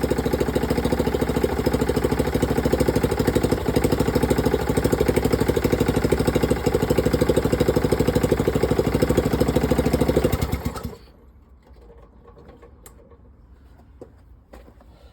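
Draper rotavator's small petrol engine, fitted with a VM22 carburettor, running steadily with an even, rapid firing beat, then cutting off abruptly about eleven seconds in. A few faint clicks follow.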